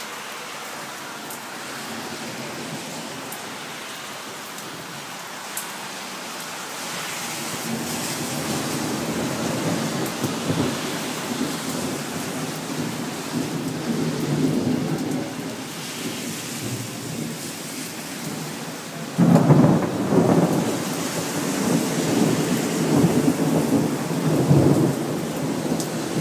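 Thunderstorm: steady rain hiss, with thunder rumbling in about a third of the way through. A sudden loud thunderclap comes about three-quarters through and keeps rumbling.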